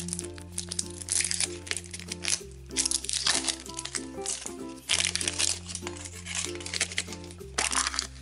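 A plastic wrapper crinkling as it is peeled off a plastic surprise egg, and the capsule being handled and pulled open, over background music with slow, held bass notes.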